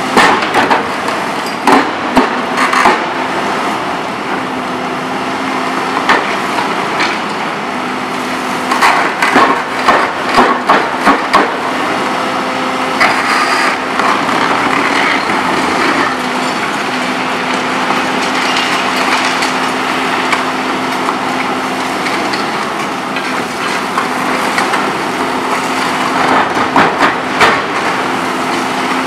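Volvo EC 700B HR demolition excavator's engine and hydraulics running steadily with a hum, while its MBI CR 80R concrete shear crushes heavily reinforced concrete. The concrete cracks and snaps in several bursts: around two seconds in, again from about eight to eleven seconds, and near the end.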